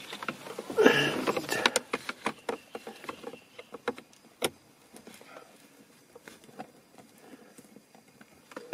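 Light clicks and scrapes of a long screwdriver working inside a BMW E36 dashboard, the tip finding and turning the small screw that holds the centre vent's air duct. The clicking is busiest in the first few seconds, with one sharper click about four and a half seconds in, then grows fainter and sparser.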